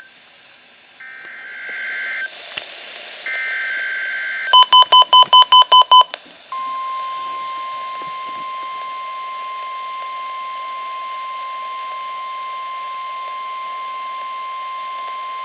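Emergency Alert System SAME header data bursts, two short warbling chirps, then eight quick harsh electronic beeps, followed by the NOAA Weather Radio 1050 Hz warning alarm tone held steady for about nine seconds. This is the weekly test of the weather radio's warning alarm.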